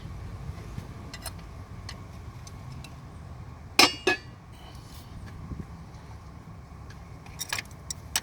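Metal tools clinking against the throttle body's parts as it is worked on: two sharp clinks about four seconds in, with a brief metallic ring, and another near the end. A steady low rumble runs underneath.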